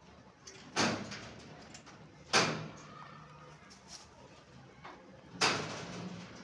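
Three sharp clanks, spaced about one and a half and three seconds apart, each ringing out briefly: the wire-mesh rabbit cage being knocked. A faint low hum runs underneath.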